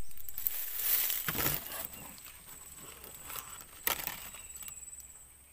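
Close rustling and crackling of grass and leaves being brushed and pushed aside at a swamp edge. The louder stretches come about a second in and near four seconds, then it fades out.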